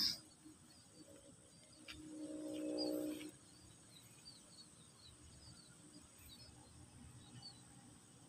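Small birds chirping, short high chirps repeated throughout. A sharp knock right at the start, and about two seconds in a brief pitched hum that swells for about a second and then stops abruptly.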